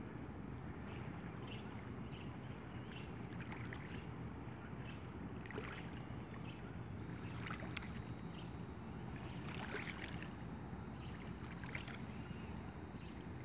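Small waves lapping and splashing irregularly at the water's edge over a steady low rumble.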